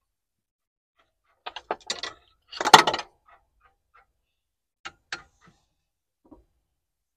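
Metal spanner clinking and scraping on a John Deere tractor engine's fittings while its temperature sensor is being changed: a cluster of clinks about two seconds in, then a few faint ticks.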